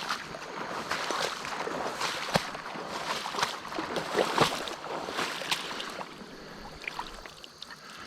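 A person wading through shallow marsh water, the steps splashing and sloshing at an uneven pace.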